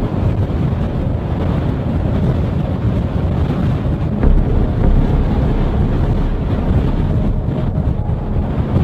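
Strong storm wind buffeting the microphone: a steady, heavy wind noise with no break.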